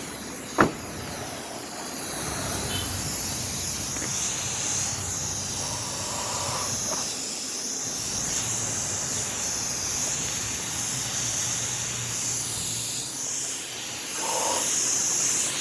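Freon refrigerant hissing steadily as it bleeds out of a cracked discharge line on a window air conditioner, with one sharp click about half a second in.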